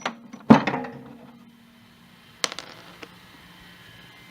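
Metal hand tools clanking as they are handled and set down among other tools: one loud clank about half a second in that rings on briefly, then a few lighter clicks.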